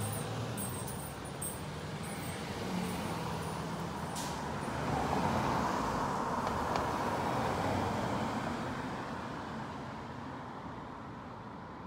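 A car driving past on a road, its tyre and engine noise swelling to a peak about six seconds in and then fading away.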